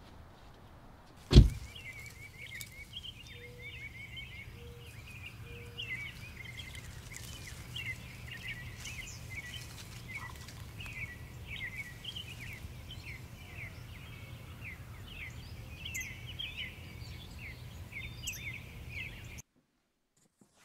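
A single loud thump about a second in, then birds chirping busily over a steady low hum. Everything cuts off abruptly near the end.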